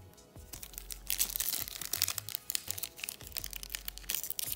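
Foil wrapper of a Pokémon trading card booster pack crinkling and tearing as it is pulled open by hand, a dense run of sharp crackles starting about a second in.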